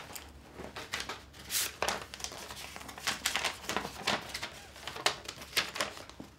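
Paper rustling and crinkling in short, irregular bursts as a letter is handled and unfolded.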